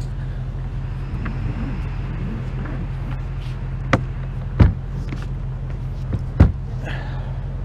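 A rope bow line being handled across a boat's fibreglass foredeck, giving a few sharp knocks against the deck, the loudest a little past halfway and again near the end, over a steady low hum.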